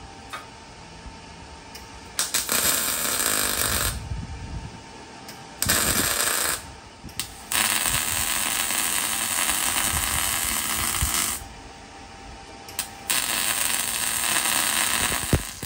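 MIG welder arc on steel, running in four bursts of about two to four seconds each with short pauses between them. The longest burst runs about three and a half seconds.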